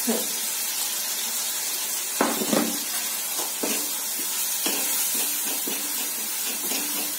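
A tomato and chilli masala sizzling in mustard oil in a steel kadhai on a gas flame. From about two seconds in, a metal spatula scrapes and stirs it against the pan in short strokes.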